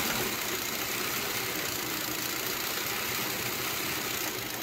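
Consew 226 industrial sewing machine running steadily on its clutch motor, a constant mechanical whir while the belt-driven bobbin winder winds thread onto the bobbin.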